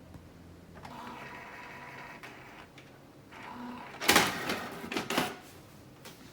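Canon Pro9500 Mark II inkjet printer's mechanism at work: a motor whine starts about a second in, then loud clattering clunks come twice, around four and five seconds in.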